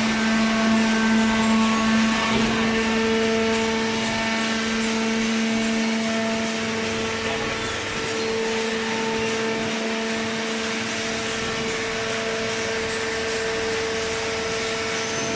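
Hydraulic baler machine running: a steady motor hum with a constant higher whine.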